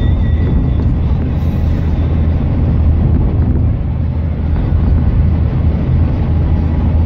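Steady low engine and tyre rumble heard from inside a vehicle's cabin while it drives at road speed.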